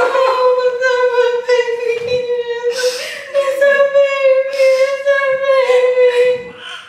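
Newborn baby crying in its first minutes after birth: two long, steady wails, with a short break for breath about three seconds in.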